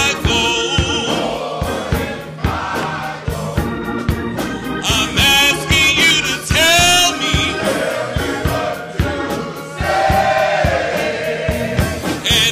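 Large gospel choir singing in full voice over a church band, with a steady drum beat underneath.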